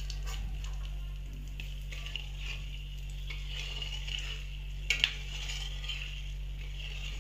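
Whole spices for a tempering (bay leaf, cardamom, cloves, cinnamon) sizzling in hot oil in a metal wok while a metal spatula stirs and scrapes them. There are light clinks of the spatula on the pan, including two sharp ones close together about five seconds in, over a low steady hum.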